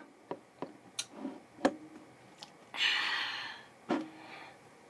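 Handling of an unloaded BB gun: a handful of short, sharp clicks spread over a few seconds, with one breathy hiss lasting nearly a second about three seconds in.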